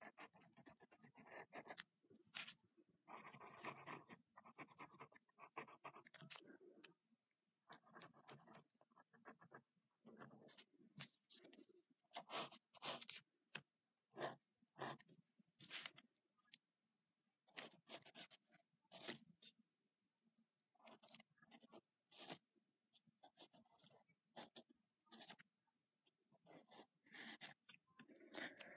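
Pencil scratching on lined notebook paper in short, irregular strokes with brief pauses between them, as a sketch is drawn.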